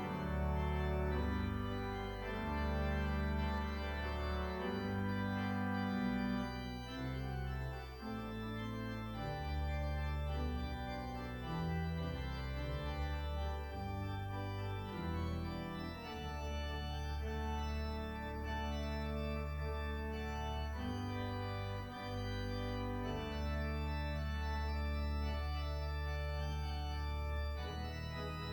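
Organ music: slow, held chords changing every second or two over long, deep bass notes.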